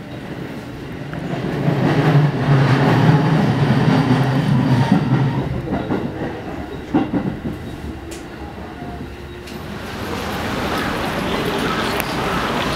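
Train running, heard from inside the carriage: a steady rumble with the clack of wheels over the rails, loudest in the first half and easing off about eight seconds in. Near the end it gives way to city street traffic.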